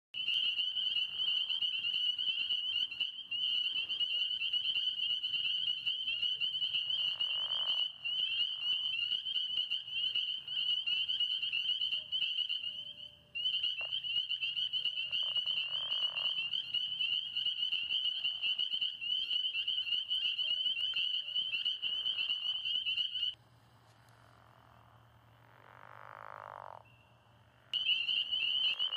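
Frog chorus: a steady high trilling that breaks off briefly about 13 seconds in and again for several seconds near the end. A few short, lower noises sound under it.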